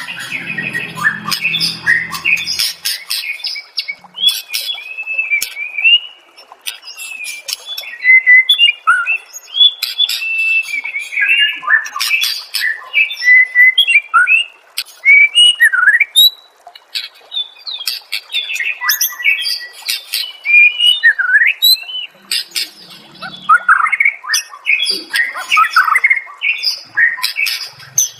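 Songbird singing a fast, varied run of whistled phrases, rising and falling glides and sharp chirps, with almost no pause: a masteran song track used to teach competition birds such as the white-rumped shama.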